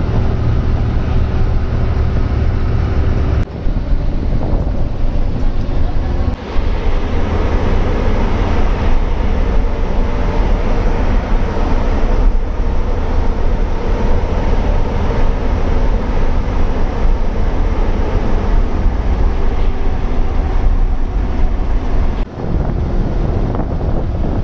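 Moving bus: steady engine and road noise with wind buffeting the microphone, heard from inside the bus and out of an open window. The sound drops out briefly three times.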